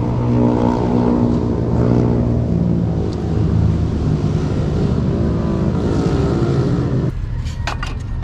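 Background music of held notes that change pitch every half second or so, over a steady low rumble. The music stops suddenly about seven seconds in, followed by a few short clinks.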